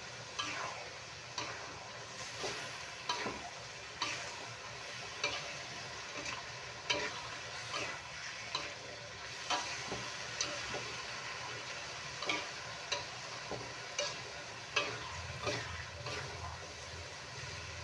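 Shrimp, carrots and green beans sizzling in a metal wok while a metal spatula tosses them, scraping and knocking against the wok about once a second, stirring in the sweet soy sauce.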